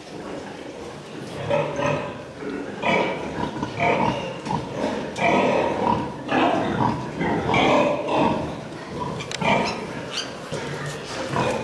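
Farmed pigs in a piggery calling, with many short, irregular calls overlapping.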